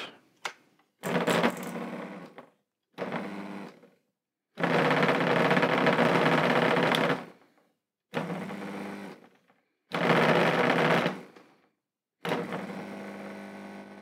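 Replacement washing-machine drain pump, a small Askoll-type synchronous-motor pump, running dry on the bench with a buzzing hum. It runs in six short spells of one to two and a half seconds, with silence between them, and the last spell fades out slowly. The pump runs, so the motor is sound.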